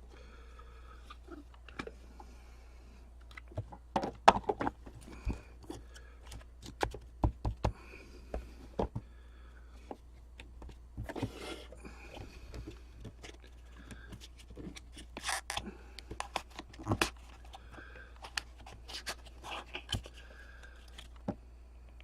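Trading card packaging and cards being handled: scattered clicks and taps with a few brief rustles or tears, loudest a little past the middle.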